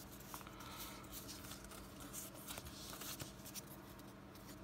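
Faint rustling and small clicks of trading cards and a Pokémon booster pack wrapper being handled, with a faint steady low hum underneath.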